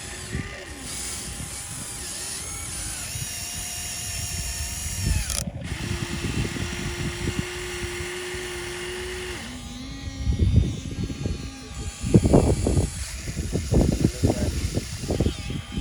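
Small electric motors of radio-controlled model construction machines whining, their pitch stepping and gliding up and down. From about ten seconds in, irregular crunching and knocking is heard.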